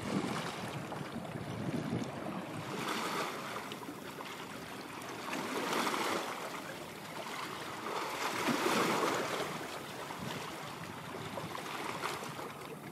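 Waterside wind and water noise: a steady rushing hiss that swells and fades about every three seconds, like small waves washing in.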